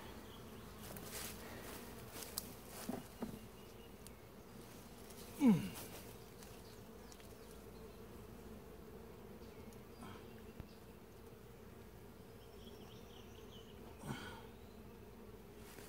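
Honeybees buzzing steadily around an opened hive. About five and a half seconds in, a bee flies close past, its buzz loud and dropping sharply in pitch, and a fainter close pass comes near the end.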